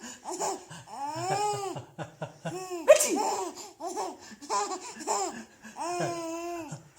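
A young child laughing in repeated high-pitched bursts, with a sudden sharp burst about three seconds in.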